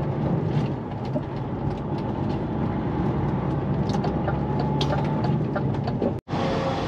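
Lorry (HGV) engine running steadily with road noise, heard from inside the cab while driving. The sound drops out for a split second about six seconds in.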